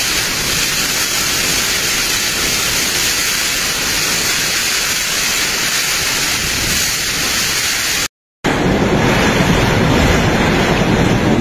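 Typhoon wind and driving rain: a loud, steady rush of noise. It breaks off briefly about eight seconds in and comes back with a heavier low rumble.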